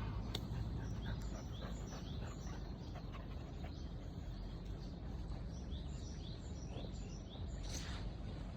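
A small bird singing in runs of short, quickly repeated high chirps, over a steady low rumble of outdoor wind noise.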